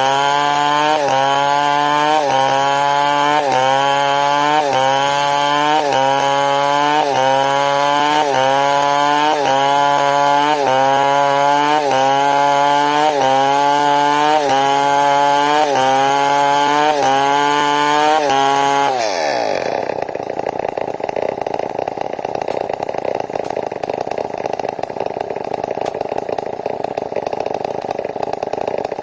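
Large two-stroke 070-type chainsaw cutting wood under load, its engine pitch sagging and recovering about once a second. About two-thirds through, the throttle is released and the engine winds down quickly to idle.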